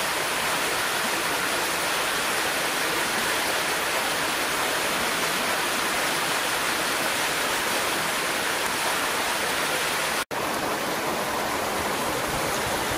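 Rocky hill stream flowing over boulders: a steady rushing wash of water that cuts out for an instant about ten seconds in.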